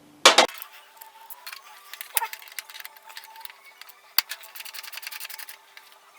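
Metal hand tools clinking and tapping against the motorcycle's rear brake caliper and bolts, with a sharp clack near the start and a quick run of fast, even ticks about two thirds of the way through.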